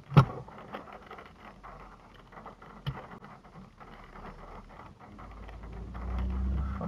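Car cabin noise picked up by a dash cam: faint road and engine noise with scattered small clicks, after a sharp click right at the start. A low engine hum swells over the last couple of seconds.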